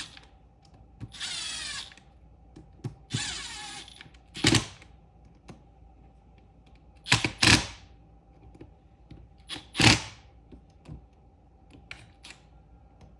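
Impact driver snugging up cover screws in two short runs of under a second each, followed by a few sharp knocks.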